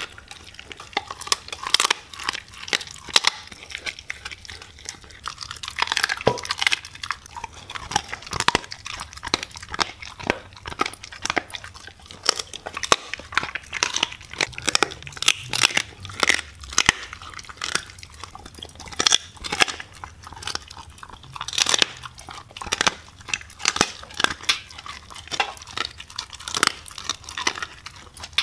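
Siberian husky eating raw meat from a stainless-steel bowl: chewing with many sharp, irregular crunches, a few each second.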